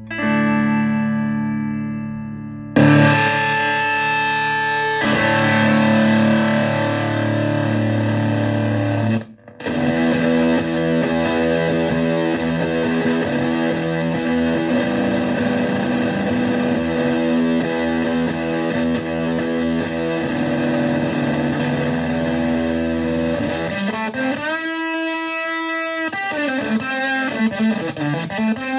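Stratocaster electric guitar played through a Tone Bender MKI fuzz pedal into a Fender Twin Reverb–style amp: thick, fuzzy distorted chords and lines. A chord rings and fades, a new loud chord comes in about three seconds in, the playing breaks off briefly near ten seconds and then goes on, with bent notes near the end.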